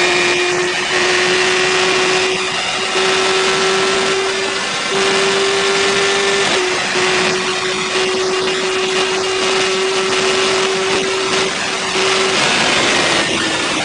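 Honda CBR1000RR's inline-four engine held at high revs under hard acceleration, its pitch creeping slowly upward with a few brief dips, over heavy wind rush. Near the end the engine note falls as the revs drop.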